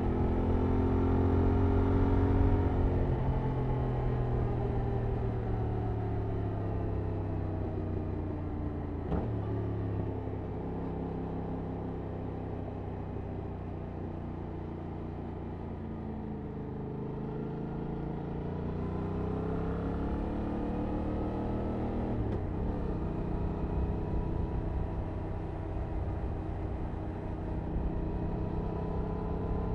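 Stock 2021 Yamaha MT-07's 689 cc parallel-twin engine running under way. The engine note falls and rises with the throttle, with two brief breaks in it: gear changes about nine seconds in and about three-quarters of the way through.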